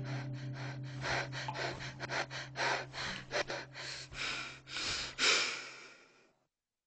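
A cartoon character breathing hard in quick, irregular gasps, about three or four breaths a second, over a fading low held note. It stops about six seconds in.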